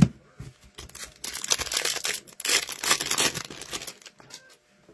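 A hockey card pack (2023-24 Upper Deck Extended Series) being torn open, its wrapper tearing and crinkling for a couple of seconds, with a sharp tap right at the start.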